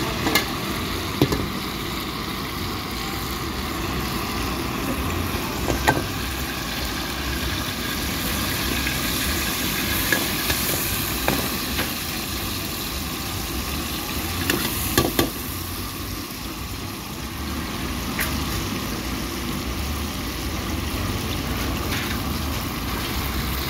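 Hot oil sizzling steadily in a wok, with a few sharp metallic clinks of utensils against the pan.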